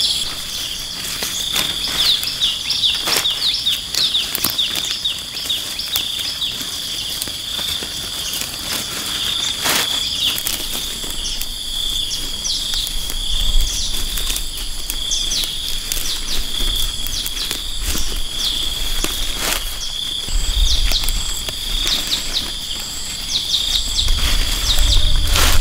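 A steady, high-pitched insect chorus with short chirps that come in quick runs near the start and again near the end. A few sharp knocks and some low rumbles in the second half.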